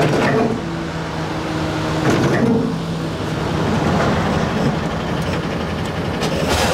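A motor vehicle's engine running steadily, with a sharp clunk near the end.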